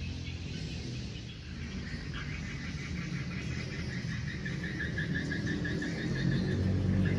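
A bird chirping in a quick run of short, high notes, about five a second, starting about two seconds in, over a low steady hum.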